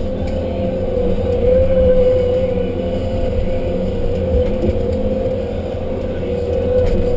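Tigercat 1075B forwarder running, heard from inside its cab: a steady low drone with a strong mid-pitched hum that wavers slightly.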